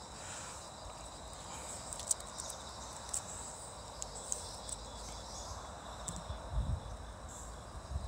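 Night insects chirping faintly and steadily, with a few light clicks and low knocks from handling and footsteps about six to seven seconds in.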